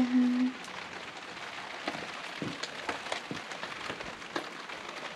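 Steady rain falling, an even hiss with scattered drip ticks.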